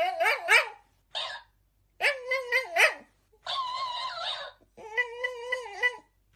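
A dog making a run of whining, yipping calls, about five wavering, high-pitched cries with short pauses between them.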